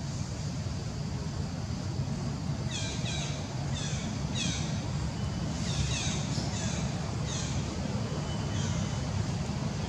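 Birds calling: short high notes that sweep down in pitch, in quick clusters from about three seconds in, over a steady low rumble.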